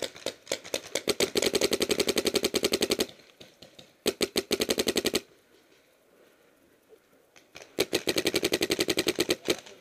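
Planet Eclipse Geo2 electronic paintball marker firing rapid strings of shots, more than ten a second, in three long bursts with a few single shots between.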